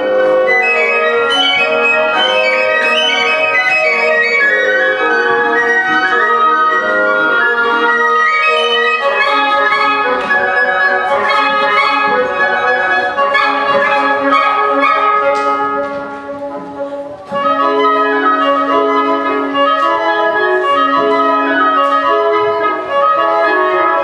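Woodwind quintet playing live: flute, oboe, clarinet, bassoon and French horn together. The music thins briefly about two-thirds of the way through, then the full ensemble comes back in with a held low note.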